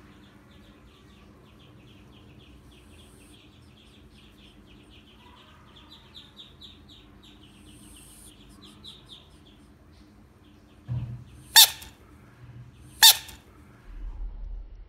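A bullfrog lunges at a plastic toy bicycle rider and bites it, giving a low thump and then two sharp, loud plastic clacks about a second and a half apart near the end. Before that there is only a faint, fast, even high chirping or ticking.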